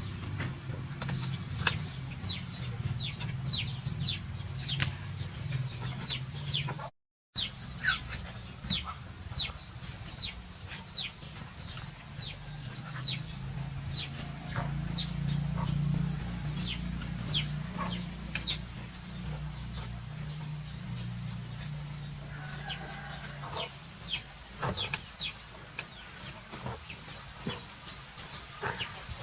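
Many short, high-pitched chirps from an animal, each falling quickly in pitch, come several a second over a steady low hum. The sound cuts out briefly about seven seconds in.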